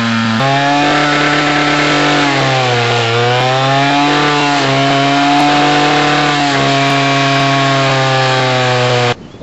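Alpine Magnum stump grinder's engine running hard while its cutting head works a stump, the engine pitch dipping and recovering several times as it is loaded. The cutting head is riding on top of the stump, which gives little real cutting action. The sound cuts off suddenly near the end.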